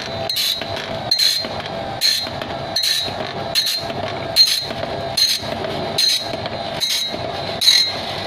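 Saw-sharpening machine working along a hand saw's teeth in an even rhythm, one stroke about every 0.8 seconds over a steady mechanical hum.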